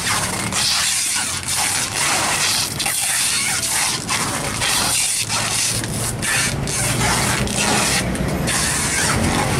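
Steady outdoor noise with a low motor hum underneath, mixed with the handling of fish and plastic baskets as whole cobia are sorted.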